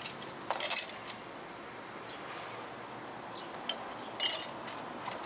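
Metal hand tools such as wrenches clinking together as they are picked up and set down, two short clattering bursts about half a second and four seconds in, with a few lighter ticks between.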